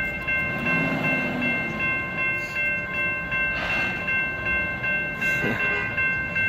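Railroad grade-crossing bell ringing steadily, about twice a second, over the rumble of a slow freight train's cars rolling past.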